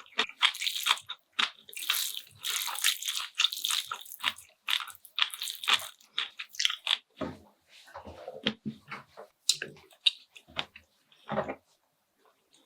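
Close-miked eating: wet slurping and chewing mouth sounds, in a dense run of short noisy bursts for the first half and sparser smacks and chews after that.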